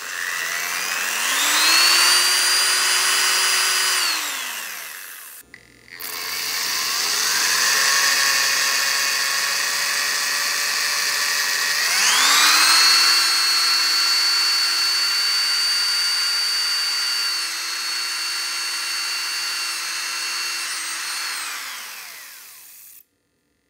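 Corded electric drill running on power from a homemade 12 V inverter. It spins up, runs steadily for a couple of seconds and winds down. A second or so later it starts again at a lower speed, steps up to a higher speed about halfway through, holds there, then winds down and cuts off near the end.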